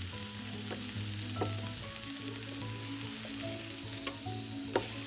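Chicken burger patties sizzling on an electric grill, a steady hiss, with a few sharp clicks; the loudest click comes near the end.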